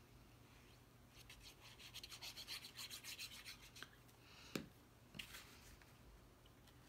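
Paper being rubbed by hand in a quick run of short strokes for about three seconds, followed by a sharp tap and then a lighter one.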